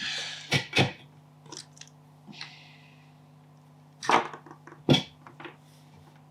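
Sharp clicks and knocks of small tools handled against a headphone circuit board during desoldering: two close together about half a second in, and two more around four to five seconds in. There are two short hisses, one at the start and one about two and a half seconds in, over a steady low hum.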